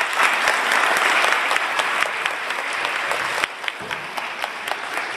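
Audience applauding: many hands clapping at once, thinning a little after about three and a half seconds.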